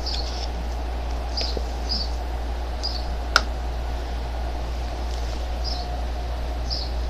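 Steady low electrical hum, with short high chirps repeating at irregular intervals and one sharp click about halfway through.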